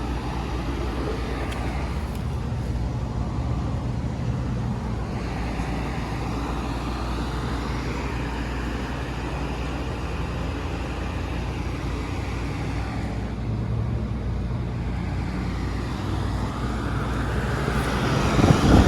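Outdoor heat pump unit running in cool mode: a steady low compressor hum under the rush of the condenser fan, growing louder near the end.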